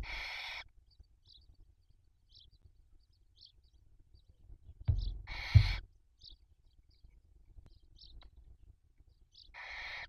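Barn owls in the nest making three short rasping, hissing calls about five seconds apart, with faint high cheeps between them. Low thumps sound around the middle call.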